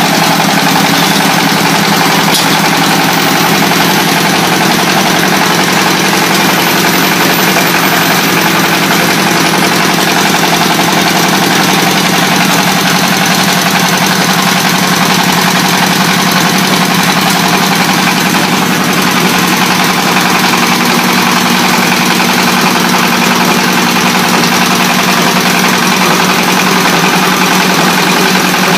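Stationary single-cylinder diesel engine running steadily, belt-driving the rollers of a clay brick making machine as clay is fed in.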